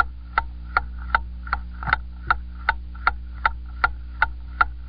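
Steady, even ticking, about two and a half ticks a second, over a low steady hum.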